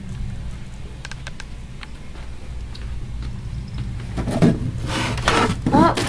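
Steady low hum with a few faint clicks. About four seconds in come loud bursts of rustling and knocking, with a short wavering pitched sound near the end.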